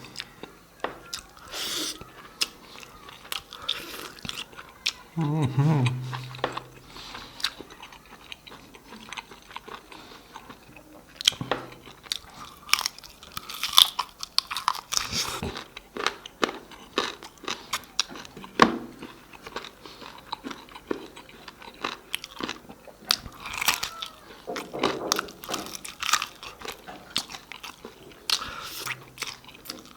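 Close-miked eating: irregular biting, chewing and smacking sounds with sharp little clicks. A brief low hum comes about five seconds in and again near the end.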